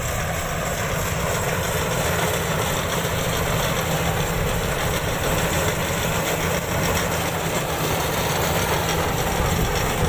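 Iseki tracked rice combine harvester running steadily as it cuts through the rice, its engine and threshing machinery making a continuous mechanical noise.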